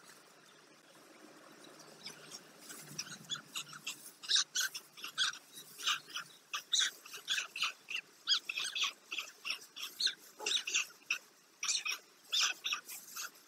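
White stork chicks calling in a rapid run of short, repeated calls, several a second, starting about two seconds in, while they are handled in the nest.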